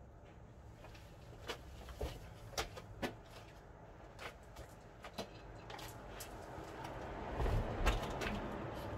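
Tools and clutch parts being handled: a few scattered light clicks and knocks, then a rustling noise that grows louder over the last few seconds, with a brief low rumble near the end.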